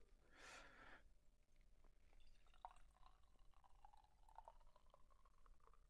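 Beer being poured from a can into a stemmed tasting glass, heard faintly: a soft trickle with small clicks.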